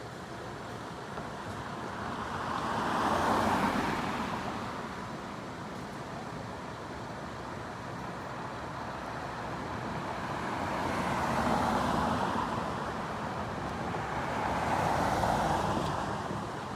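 Road vehicles passing one at a time, each a swell of tyre and engine noise that builds and fades: one about three seconds in, then two more close together near the end. No siren or air horn sounds.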